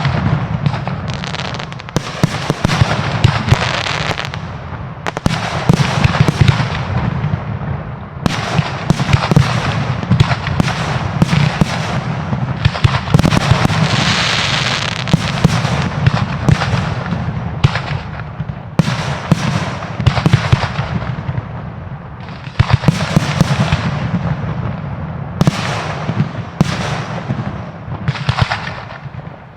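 Fireworks display: a dense, unbroken run of bangs from bursting shells and cake shots, with crackling between them and a hissing stretch about halfway through.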